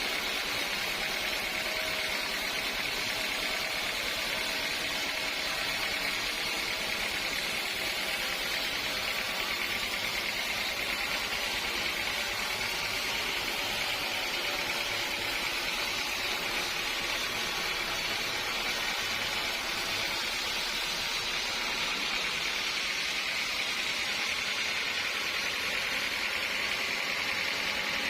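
Sawmill machinery running steadily, a continuous even noise with a hiss in the upper range and no distinct knocks or changes.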